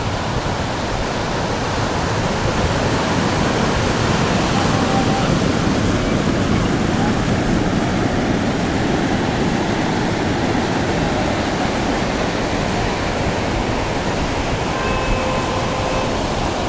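Sea surf breaking and washing up a sandy beach: a steady, loud rushing.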